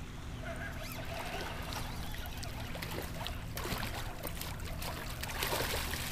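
A hooked schoolie striped bass splashing at the water's surface as it is reeled in; the splashes start about halfway through and are heaviest near the end.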